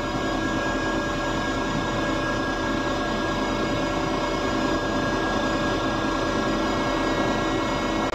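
Hydraulic deck crane's power unit running, heard from inside the operator's cab as a steady, unchanging drone with several steady hums in it.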